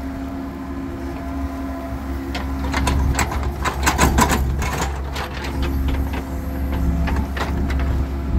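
Hydraulic excavator's diesel engine running steadily as the bucket digs a trench in wet, muddy soil. A run of sharp clanks and knocks from the bucket and its linkage comes from about two and a half to five seconds in, with a few more near seven seconds.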